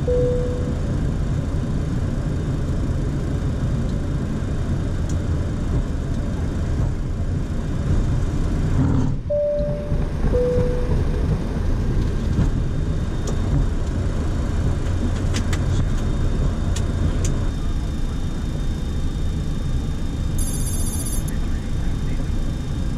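Steady low rumble of a Boeing 737-800 flight deck as the jet rolls out and taxis after landing. A short two-note falling chime, high then low, sounds about nine seconds in, right after a brief break in the rumble.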